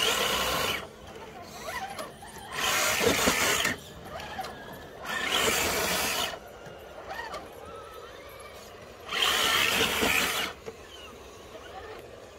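RC crawler's electric motor and gear drive whining in short throttle bursts, four spurts of about a second each, as the crawler works its way up an obstacle.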